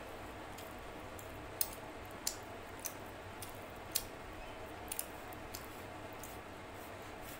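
Close-miked eating by hand: wet clicks and smacks from chewing chicken curry and rice, and fingers squishing rice against a ceramic plate. There are about six sharp clicks at irregular intervals, the loudest about four seconds in, over a steady low background noise.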